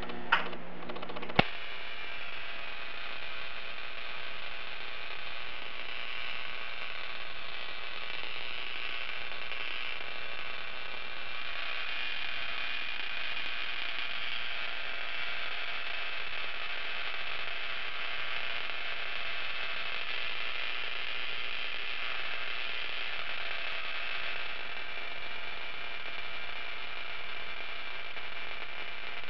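Small homemade spark-gap Tesla coil, powered by a bug-zapper transformer, starting with a sharp click about a second and a half in, then running with a steady buzz as it throws arcs.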